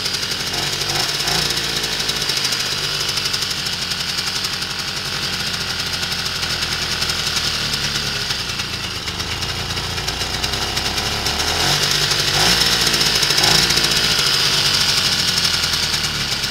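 Romet Komar moped's small two-stroke engine running steadily, just started after a month standing. Its speed swings briefly about a second in, and again around twelve seconds in, where it runs a little louder for a few seconds.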